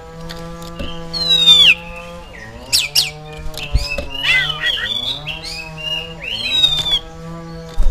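Oriental magpie-robin (kacer) singing: loud whistled calls that fall in pitch, with sharp chirps in between. A low steady droning tone runs underneath.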